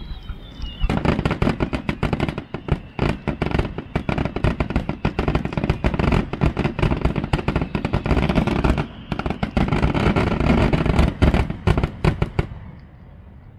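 Fireworks display: a dense barrage of aerial shell bursts, many sharp reports a second over a deep rumble. The barrage starts about a second in and stops abruptly near the end.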